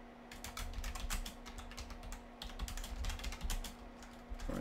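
Typing on a computer keyboard: quick runs of key clicks with short pauses between them, over a faint steady hum.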